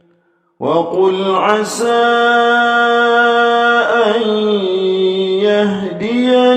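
Male reciter chanting the Quran in a melodic, drawn-out style, holding long sustained notes with slow ornamental turns. The voice comes in about half a second in, after a short breath pause.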